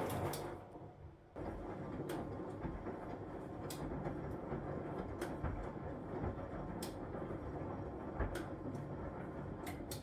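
Huwa Deluxe 65 washing machine drum tumbling a wash load. The drum stops briefly in the first second, then the wash motor starts again abruptly: the left-right reversing wash action. It runs on steadily with laundry and water churning and a light click about every second and a half.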